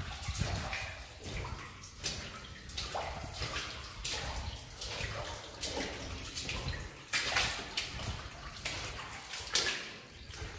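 Footsteps splashing through water on a mine passage floor: irregular splashes, roughly one a second, over a low rumble.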